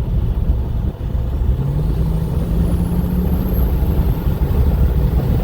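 2011 BMW 335d's triple-turbocharged straight-six diesel accelerating hard at full throttle on a kick-down, building about 50-odd psi of boost. A short dip about a second in, then a heavy engine drone rising in pitch, with a faint turbo whistle climbing steadily higher.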